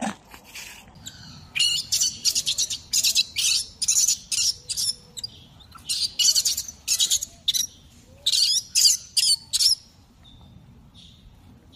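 Newborn macaque screaming: rapid clusters of shrill, high-pitched squeals that start about a second and a half in and stop just before the end.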